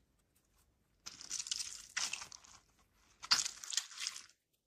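A squishy mesh-netted stress ball squeezed and kneaded by hand. There are two spells of squeezing and rubbing noise, the first about a second in and the second about three seconds in.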